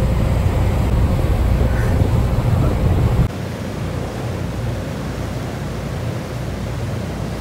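Low rumble of a boat's engine and wind buffeting the microphone. About three seconds in it drops suddenly to a quieter, steady rush of wind and churning wake water.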